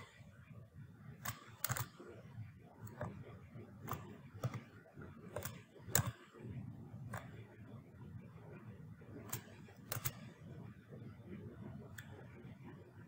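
Irregular computer mouse clicks and keyboard taps, about a dozen sharp clicks spread out, over a faint low hum.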